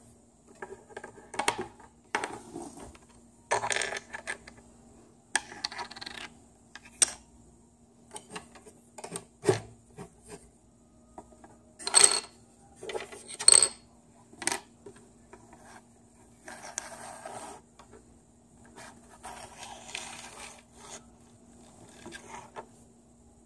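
Small plastic toy figures and props being handled and set down on a table: scattered light clicks, taps and rustles, with two sharper clicks near the middle, over a faint steady hum.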